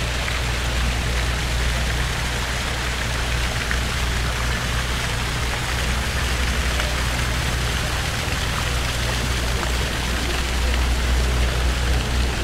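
City street ambience: a steady rushing noise with a low hum underneath, unchanging throughout.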